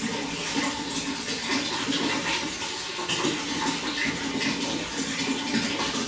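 Running water flowing and splashing in a steady, continuous stream.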